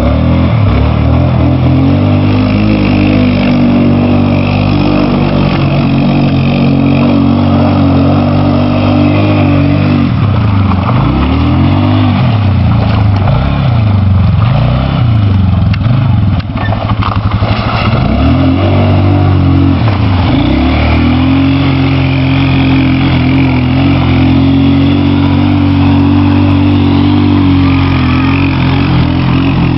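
Polaris 500 engine running close up while being ridden, holding a steady pitch, then rising and falling several times in the middle as the throttle is opened and eased off, before settling back to a steady run.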